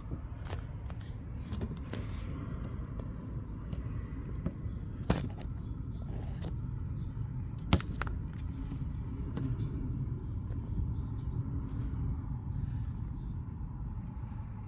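A few sharp knocks and clicks from engine parts and hand tools being handled, the loudest about five seconds and nearly eight seconds in, over a low steady rumble.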